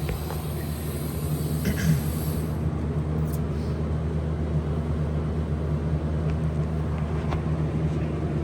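A steady low motor hum, with a few light clicks and a faint high hiss that cuts off partway through.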